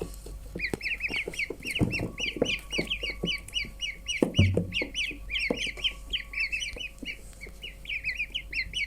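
A group of ducklings peeping: many short, high calls, several a second, overlapping without a break. A couple of low knocks come about two and four and a half seconds in.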